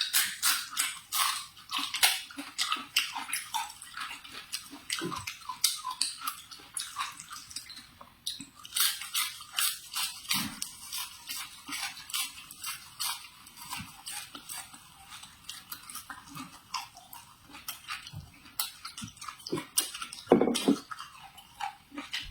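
Close-miked chewing of stir-fried vegetables: quick, wet, crisp mouth sounds, several a second, with a louder, fuller mouth sound near the end.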